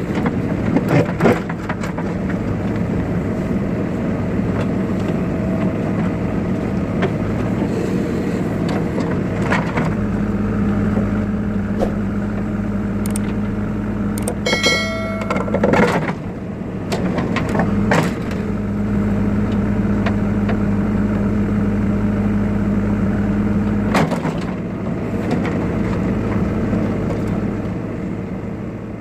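Backhoe loader's diesel engine running steadily while it digs, its note strengthening under hydraulic load twice for several seconds at a time. Scattered sharp knocks and a short high-pitched tone come about halfway through.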